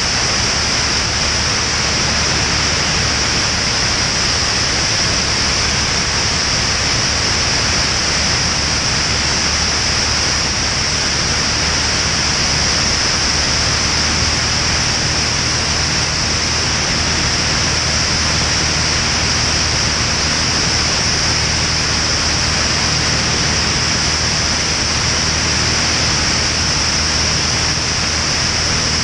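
Steady rush of airflow with the low drone of a Van's RV-10's piston engine and propeller beneath it, unchanging in cruise flight.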